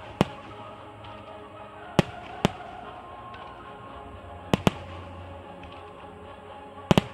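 Aerial fireworks shells bursting in seven sharp bangs, most in close pairs, about every two and a half seconds, over steady background music.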